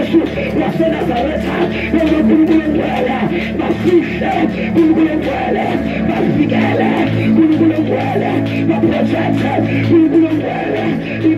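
Live worship music: a man singing into a handheld microphone over a steady instrumental backing.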